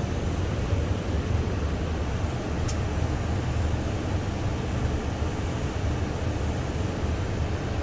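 Steady low mechanical rumble with an even hiss over it, and one short sharp click about two and a half seconds in.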